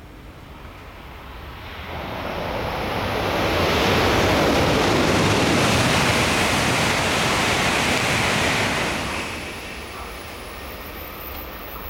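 N700-series Shinkansen train passing through at high speed without stopping: a rushing noise that swells over a few seconds, stays loud for about five, and falls away about nine seconds in.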